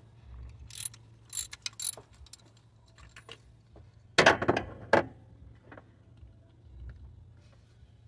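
Socket wrench ratcheting on a 24 mm deep socket to loosen the oil pressure switch on a Toyota 1NZ-FE engine: scattered sharp ratchet clicks, then a louder run of clicks and clatter about four seconds in.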